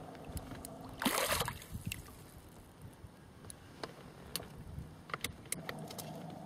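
A short splash about a second in as the hooked wels catfish stirs the water at the surface, then gentle water sounds with scattered small clicks.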